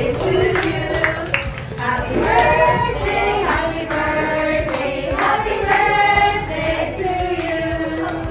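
A group of girls' and women's voices singing together in chorus, a birthday song sung to the celebrant as the candle-lit cake is held up to her.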